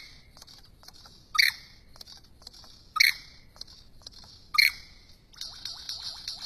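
Lyrebird calling: three loud, sharp calls about a second and a half apart, over a steady high hiss and scattered clicks. Near the end a quick run of short falling notes begins, several a second.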